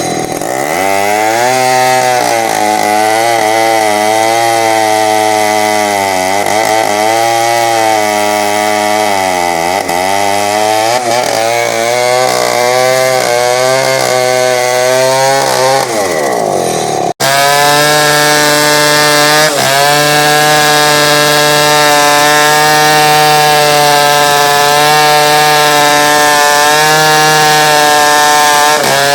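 Chainsaw cutting through teak wood, its engine pitch repeatedly dipping under load and recovering. After an abrupt break past the middle it runs on at a steadier pitch.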